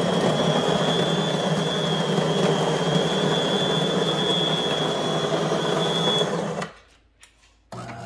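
The built-in grinder of a De'Longhi PrimaDonna S bean-to-cup coffee machine grinding beans for two extra-long coffees: a steady, loud grinding noise with a high whine, which stops abruptly about seven seconds in. Near the end a quieter steady low hum starts.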